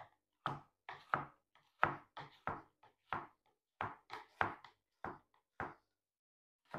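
Serrated knife chopping frozen sliced peaches on a cutting board: a run of short knocks, about three a second, stopping a little before the end.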